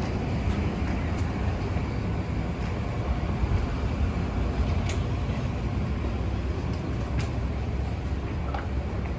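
Steady low rumble of city street traffic, with a few faint clicks.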